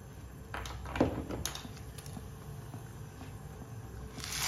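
Pot of water at a rolling boil, a steady low bubbling with a few light clicks. Near the end, dry elbow macaroni starts pouring into the boiling water with a sudden loud hiss.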